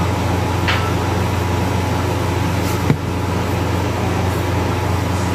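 Steady low machine hum with a hiss, and one sharp click about three seconds in.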